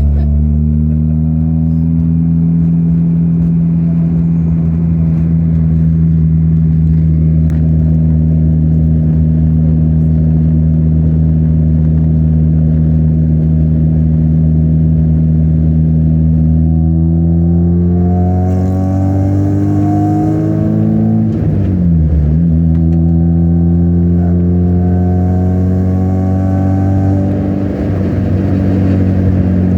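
Mazda Miata's freshly rebuilt four-cylinder engine pulling steadily while driving, then revving up, dropping in pitch at a gear change, and revving up again.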